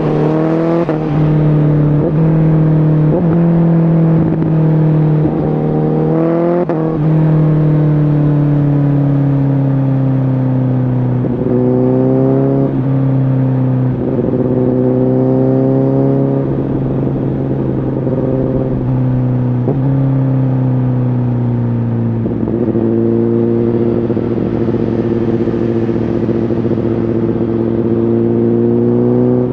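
Honda CBR1000RR Fireblade SC77's inline-four engine through a Shark Factory aftermarket exhaust, under way. In the first seven seconds the revs climb and cut off sharply again and again as it shifts up through the gears. After that it cruises at fairly steady revs, with a few more gear changes and a stretch where the revs slowly fall off.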